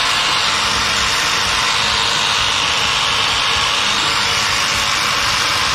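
Battery-operated handheld pressure washer spraying, a steady loud hiss of motor and water jet blasting grime off teak furniture, shutting off near the end.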